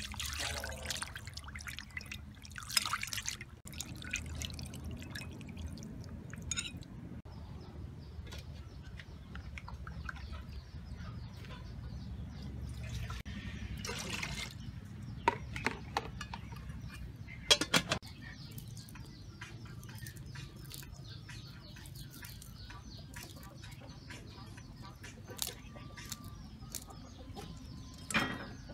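Water pouring and splashing: a fish being rinsed under a stream of water in a bowl, then water poured into a steel pot, with scattered clicks and knocks of handling. Near the end, a cleaver taps on a wooden chopping board.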